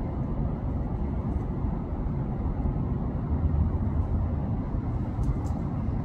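Steady low rumble of outdoor background noise, heaviest in the bass, with no speech and no distinct events.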